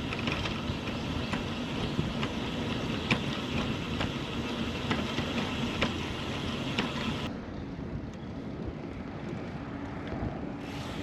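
Wind buffeting the microphone over rolling noise from a bicycle being ridden, with scattered sharp clicks and rattles. About seven seconds in, the sound turns duller and a little quieter.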